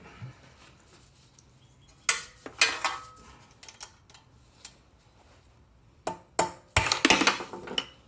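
Metal-on-metal clanks and knocks of hand tools on a small engine: a couple of sharp strikes about two seconds in, then a quicker run of several ringing strikes near the end.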